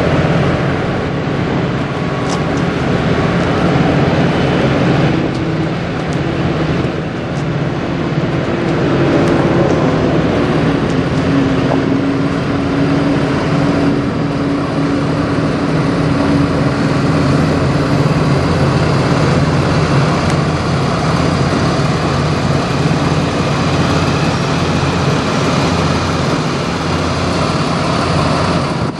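Semi truck diesel engine running steadily, with traffic noise.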